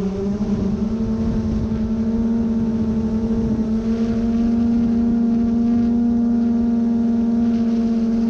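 Steady mechanical hum with a held low whine and overtones, stepping up slightly in pitch about half a second in and then holding level.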